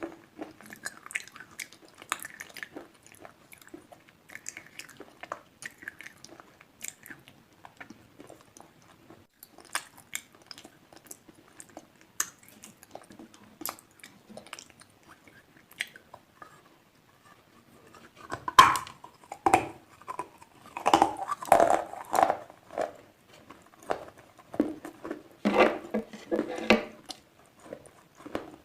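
Slate pencils being bitten and chewed with a dry crunch: faint scattered crackles at first, then louder bouts of crunching from about two-thirds of the way in.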